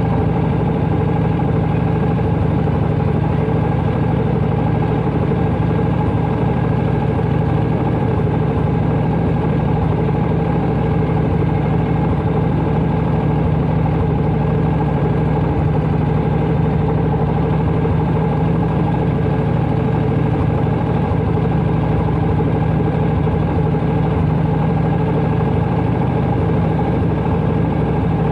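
1992 Harley-Davidson Heritage Softail Classic's 1340 cc Evolution V-twin running steadily while the bike is ridden at an even pace, with no change in revs.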